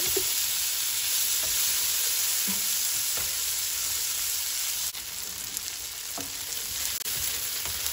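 Beans and chopped onion, garlic and pepper sizzling in hot oil in a frying pan while being stirred with a spatula. The sizzle drops somewhat about five seconds in.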